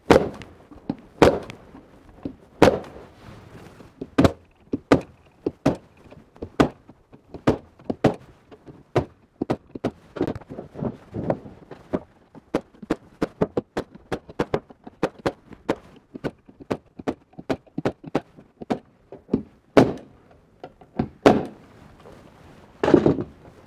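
Bostitch 16-gauge pneumatic stapler driving 2-inch staples into the wooden corners of a beehive super: a sharp crack with each shot, the loudest about every second or so, with lighter knocks of handling between. A short rushing noise comes near the end.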